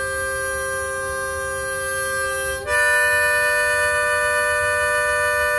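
Diatonic harmonica sounding a chord where a single note is intended: hole 4 blown with holes 3 and 5 also sounding, held for a couple of seconds, then switching after a short break to hole 4 drawn, again with holes 3 and 5, held steady. This is the 'dirty' sound of a beginner's embouchure that fails to isolate the hole.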